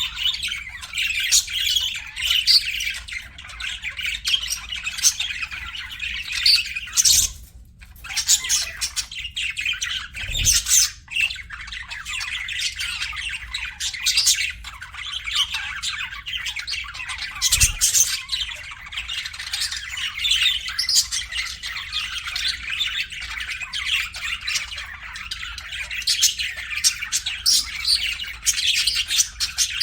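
A group of pet budgerigars (budgies) chattering, chirping and squawking continuously, with a brief lull about seven seconds in and a couple of faint dull thuds.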